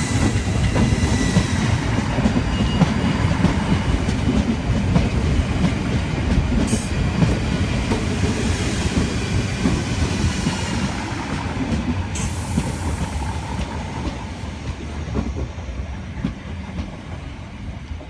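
Red South West Trains electric multiple unit running along the platform: a steady rumble of wheels on rail with clickety-clack over the joints and a faint electric whine early on. There is a short hiss about seven seconds in and a longer one about twelve seconds in, and the sound fades over the last few seconds as the train draws away.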